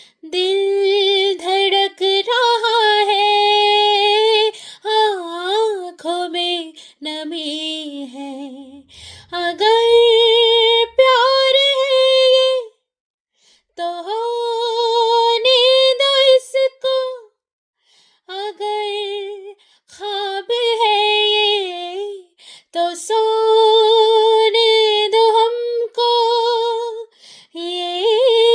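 A woman singing a Hindi song unaccompanied, in long held phrases with vibrato and short pauses between lines.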